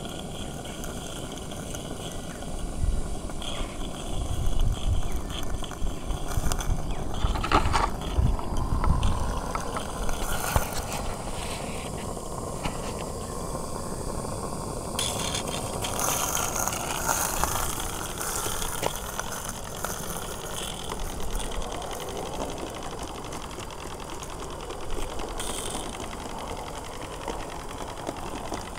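Live-steam SM32 Shay model locomotive running, a steady rapid mechanical clatter from its vertical cylinders and geared drive with its steam exhaust. Low rumbling knocks stand out a few seconds in.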